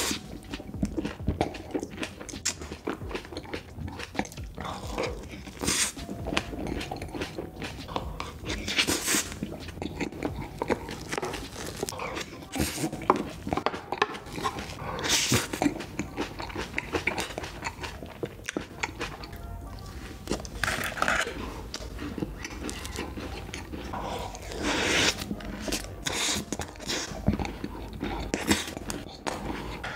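Close-miked mukbang eating: a person chewing mouthfuls of cream cake and ice cream taken from a wooden spoon, with many small mouth clicks and a louder mouth sound every few seconds.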